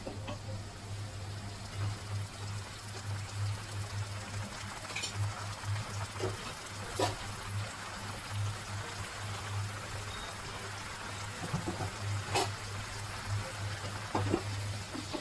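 Brown sauce simmering in a nonstick wok of stir-fried broccoli: a steady bubbling hiss with a few sharp pops.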